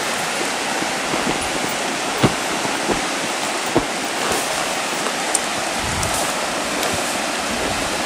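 Steady rushing of river rapids, with a few sharp knocks scattered through it, the loudest about two seconds in.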